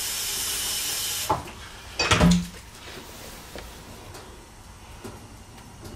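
A steady hiss that stops about a second in, then a brief loud clatter of kitchenware as the water pitcher is brought to the oven's sheet pan, followed by quiet room tone.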